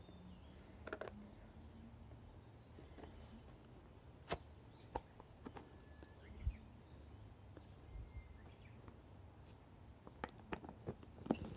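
Scattered light clicks and taps of a plastic food-storage container and its snap-on lid being handled and opened, with a quick run of clicks near the end, over a quiet outdoor background with a few faint bird chirps.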